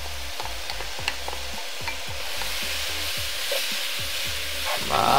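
Eggplant and onion stir-frying in a pan with a chili-oil soy sauce just poured in, sizzling steadily while a spatula stirs and scrapes, with many short light clicks of the spatula against the pan.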